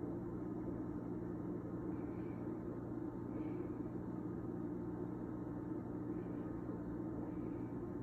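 A steady, machine-like low hum, with four faint short high chirps above it.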